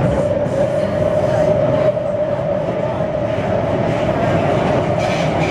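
MTR C-Train metro car running on the Kwun Tong Line, heard from inside the carriage: a steady rumble of wheels on rail with a constant whine.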